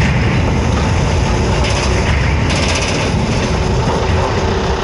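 Dump truck with its bed tipped up, running while a load of oil palm fruit bunches tumbles out of the bed: a steady, loud rumble and clatter.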